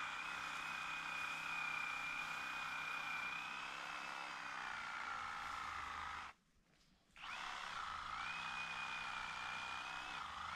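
Small electric power tool motor whining steadily, sagging a little in pitch as it works through brush. It cuts off about six seconds in and winds back up to speed a second later.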